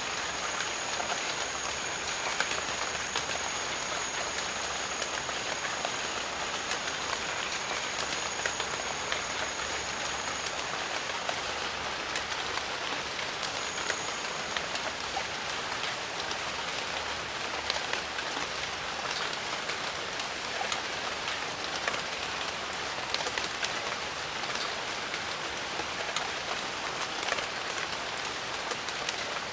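Steady rain with many close individual drops ticking through the hiss. A thin, high, steady tone sounds over the first ten seconds or so, stops, and comes back briefly a few seconds later.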